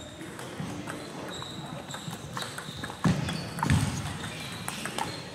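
Table tennis rally: the ball clicking off the bats and the table in quick, irregular knocks, with two heavy thuds about three seconds in.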